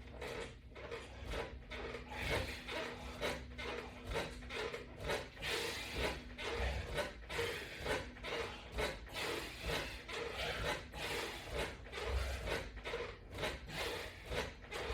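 Rhythmic repetitions of abdominal crunches against resistance bands: a short rubbing, breathy stroke about twice a second, as the body and equipment move with each rep.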